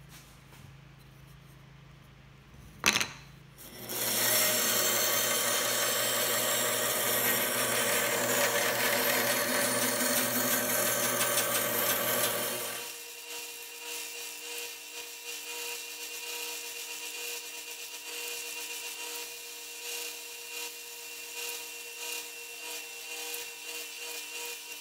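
A bandsaw motor runs, then a sharp click. From about four seconds in, the blade cuts through a small wooden block with a loud, steady sawing noise that stops after about nine seconds. Then a belt sander runs with a steady hum while the wood is pressed against the belt in short repeated passes.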